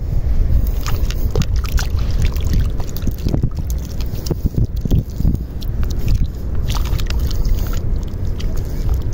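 Wet mud squelching and shallow seawater sloshing in short, irregular splashes, over a heavy low rumble of wind on the microphone.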